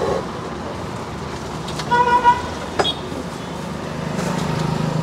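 A vehicle horn gives a short double toot about two seconds in, over steady traffic noise. A sharp click follows just under a second later.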